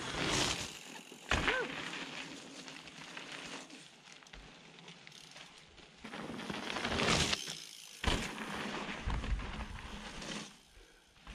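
Mountain bikes riding past on a dirt and gravel trail, tyres crunching and rolling over the loose surface, loudest as a rider passes close about seven seconds in and again shortly after.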